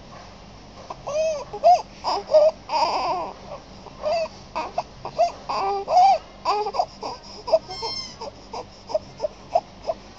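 Infant crying and fussing in short bursts: many brief wails that rise and fall in pitch, coming thick at first and becoming shorter and more spaced out toward the end.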